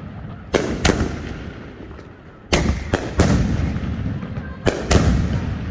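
50-shot double-break peanut firework cake firing: sharp bangs in quick pairs and threes about every two seconds, each dying away in a rumbling echo.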